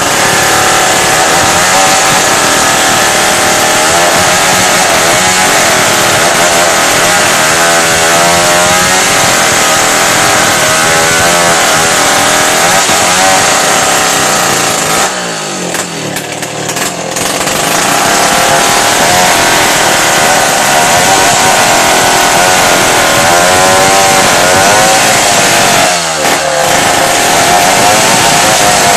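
Two-stroke chainsaw running at high revs while cutting through a tree trunk, its pitch wavering as the chain bogs and frees in the wood. About halfway through the engine drops toward idle for a couple of seconds, then revs up again, with another short dip near the end.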